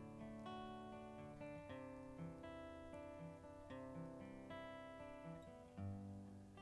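Quiet background music: plucked and strummed acoustic guitar chords, changing about every half second.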